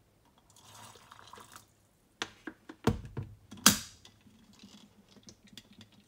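Boiling water poured briefly from an electric kettle into a glass teapot to preheat it, followed by several sharp knocks and clicks as the kettle is set back down and the glass teapot is handled, the loudest knock in the middle.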